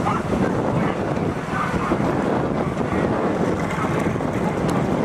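Steady wind rumble buffeting the microphone of a camera travelling just ahead of a bullock cart race.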